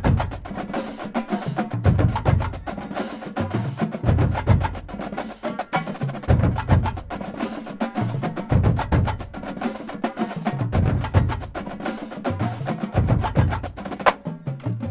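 Marching drumline playing a cadence: rapid snare and quad-tenor strokes over bass-drum runs that step down in pitch, coming back about every two seconds.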